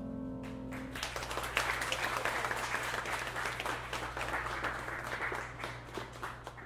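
The last chord of a grand piano dies away, then applause starts about half a second in and keeps on, fading out near the end.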